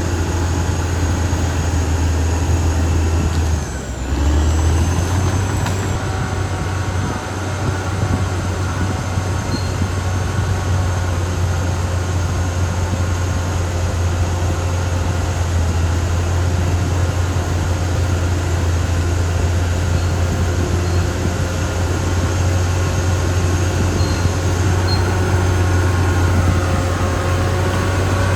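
Caterpillar D6R XL crawler bulldozer's diesel engine running steadily under load, with a steady high whine over the engine. The engine note dips briefly about four seconds in, then picks up again.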